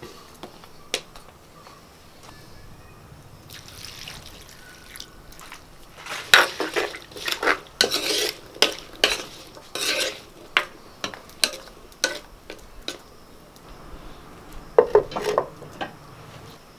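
Wooden spoon stirring chopped raw papaya and water in a clay pot, a run of scraping, knocking strokes against the pot. About fifteen seconds in, a clay lid is set on the pot with a short cluster of clinks.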